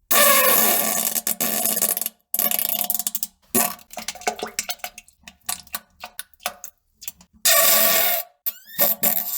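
Series of fart sounds: several loud bursts about a second long, each a rapid flutter, with shorter blips between them and a quick rising squeak near the end.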